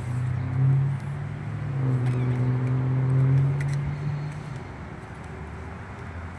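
Low hum of a vehicle engine running, louder for the first four seconds or so, then fading to a faint background drone.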